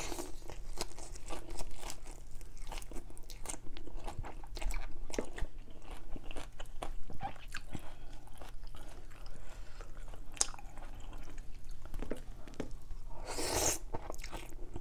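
Close-up eating sounds: a person chewing noodles and fresh greens, with many short wet, crunchy clicks. A slurp of noodles at the start and another longer slurp near the end.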